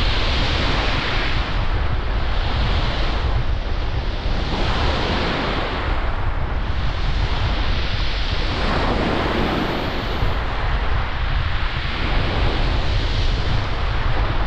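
Waves breaking and washing on the shore in surges every second or two, with wind buffeting the microphone in a steady low rumble.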